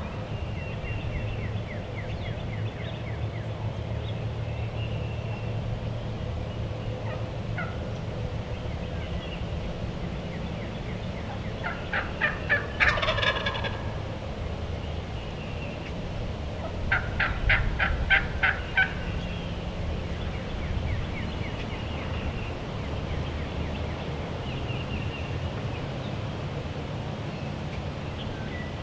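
Wild turkey toms gobbling twice, about twelve and seventeen seconds in, each gobble a quick rattling burst. Faint songbird chirps in between.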